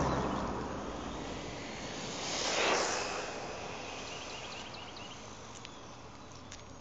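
A passing car fades out, then about two and a half seconds in a 1/10 RC buggy with a brushless motor speeds past at high speed, rising and falling in about a second.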